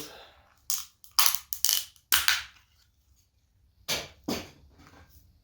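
Thin plastic being cracked and snapped by hand: a quick run of five sharp snaps in the first two seconds, then two more a little under two seconds later.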